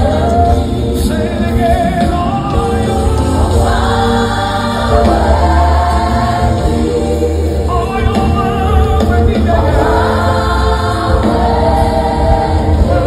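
Gospel music: many voices singing together as a choir over a band with a heavy bass line.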